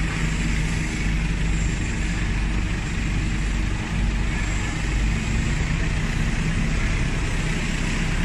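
Diesel engine of a Jinggong JG125S wheeled excavator running steadily with a deep rumble while the machine works its grapple arm.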